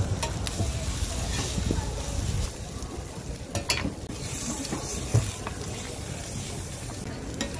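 Egg-and-shredded-cabbage patty frying with a steady sizzle on a hot flat griddle, with several sharp clicks and scrapes of a metal spatula on the plate.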